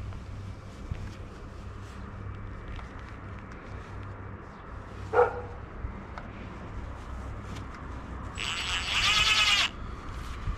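A dog barking: one short bark about halfway through, then a louder, drawn-out bark of over a second near the end, over a steady low rumble.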